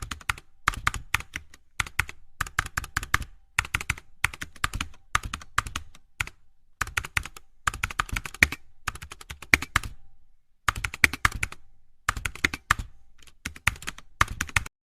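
Quick, sharp clicks in irregular bursts, several to a dozen at a time, with short pauses between bursts.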